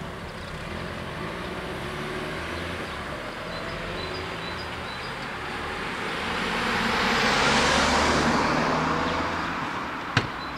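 Road traffic moving off over a level crossing, with one car driving close past, swelling to its loudest about eight seconds in and then fading. A single sharp click comes near the end, and faint bird chirps can be heard.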